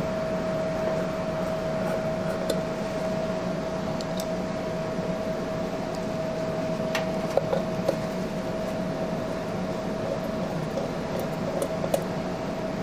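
Steady mechanical hum holding one pitch, with a few scattered light metallic clicks as a hand tool works the motorcycle's engine cover bolts.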